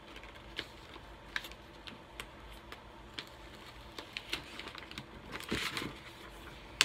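Cardboard snack subscription box being opened by hand: scattered small clicks and scrapes of the flaps, a longer rustle about five and a half seconds in, and a sharp snap at the very end.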